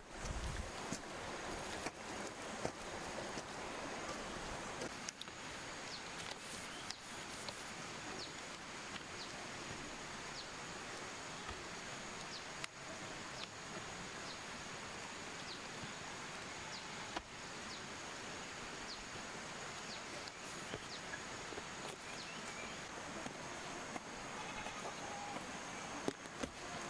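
Rural outdoor ambience: a thin, steady high-pitched insect drone over an even background hiss, with many brief, high, falling chirps scattered throughout.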